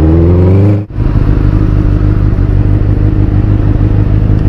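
Motorcycle engine running under way, cut off abruptly about a second in, followed by a motorcycle engine idling steadily.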